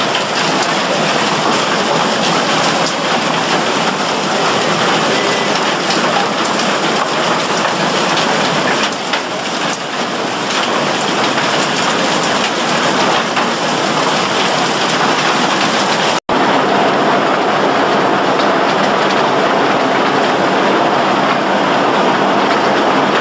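Loud, steady clatter of crushed ore pouring off a conveyor belt's head pulley amid running ore-processing machinery. The noise cuts out for an instant about 16 seconds in.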